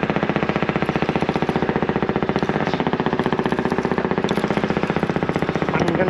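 Fishing boat's diesel engine running steadily with a fast, even chugging.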